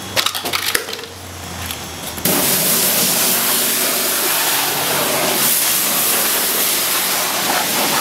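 Self-serve car wash pressure-washer wand spraying water, switching on abruptly about two seconds in and then hissing steadily. Before that there are a few light clicks over a low steady hum.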